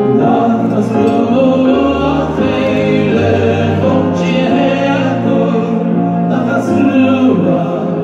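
Male vocal choir singing in harmony with a lead voice, amplified through microphones, over sustained electronic keyboard chords and bass.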